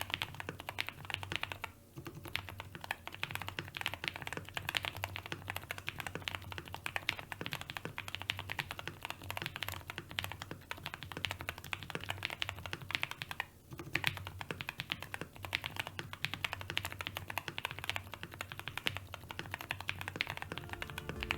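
Continuous fast typing on a mechanical keyboard fitted with Tecsee Mango Ice tactile switches (UHMWPE top housing, nylon bottom housing, UPE stem): a dense stream of keystrokes with short pauses about two seconds in and near fourteen seconds. No leaf ping can be noticed in these switches, by the reviewer's account.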